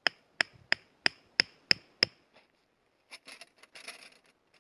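A small hatchet striking a wooden stick seven times, about three blows a second, each with a short metallic ring. Fainter rustling and light clinks follow as a metal plate is handled.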